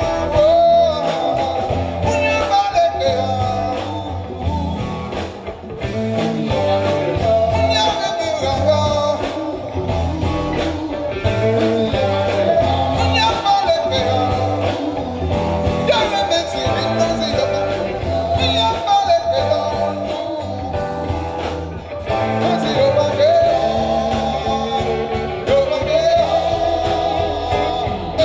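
Live band music: a melodic lead line gliding over bass and a steady beat, with no break.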